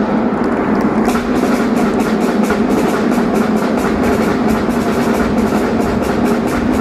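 Live marinera norteña music played by a band with drums and percussion, keeping a quick, steady rhythm.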